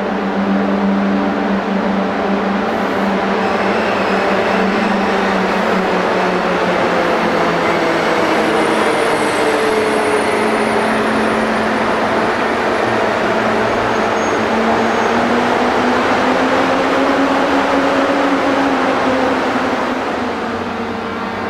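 High-speed electric train moving slowly through the platform: a steady rumbling noise with a humming motor tone that slowly slides down and then up in pitch.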